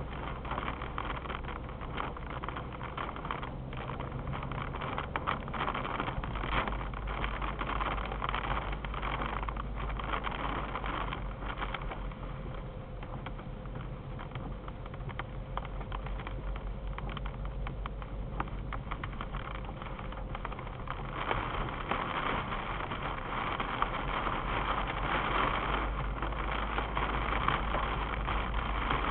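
Car driving on a rain-soaked road in a heavy downpour, heard from inside the cabin: steady tyre and road noise on wet asphalt with the patter of rain on the car, growing louder about two-thirds of the way in.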